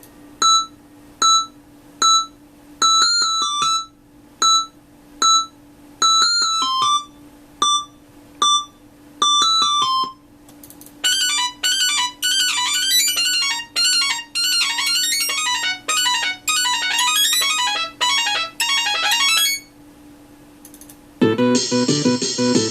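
Nokia 3585 ringtones played as MIDI through a Sound Blaster Live! sound card with the Mobile60 soundfont. For about ten seconds a short beeping tune repeats in a regular pattern. A fast, busy melody follows, and a new, fuller tune starts near the end. A steady low tone runs underneath for most of the time.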